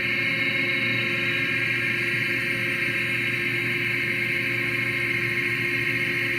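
Hardinge GT 27 gang-tool CNC lathe running under program control, holding a steady speed with a steady whine made of several tones.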